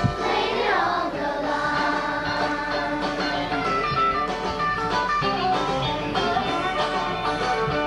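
Music with guitar and a singing voice, at a steady level, with a short thump right at the start.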